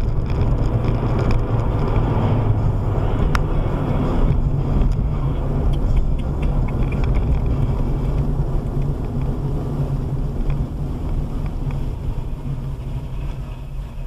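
Car's road and engine noise heard from inside the cabin by the dashcam, a steady low rumble that grows quieter over the last few seconds as the car slows toward stopped traffic. A single sharp click about three seconds in.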